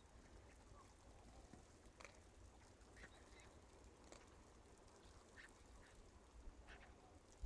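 Faint, short animal calls repeating about once a second over near silence.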